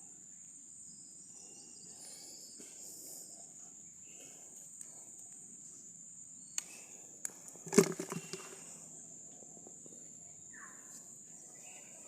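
Insects chirring in one steady, high-pitched drone, with a couple of sharp clicks and a brief loud clatter of knocks about eight seconds in.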